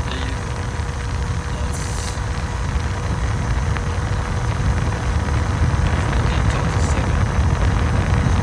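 Running clothes dryer's exhaust air rushing out of the wall vent onto the microphone as a steady low rumble, with a faint steady hum from the dryer's blower.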